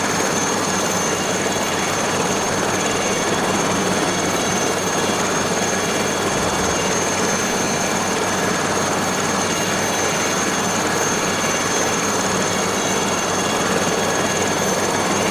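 Aérospatiale SA 315B Lama helicopter running steadily: constant rotor and turbine noise with a steady high whine on top.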